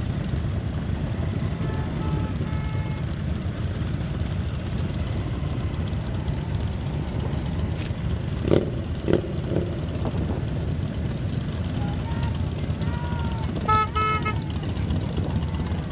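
Motorcycles riding slowly in a group, their engines a steady low rumble. Two sharp clicks come a little past halfway, and near the end a vehicle horn gives a short toot.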